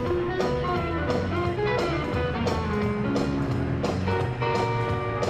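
Guitar-led music with a steady beat, played over an airshow public address system.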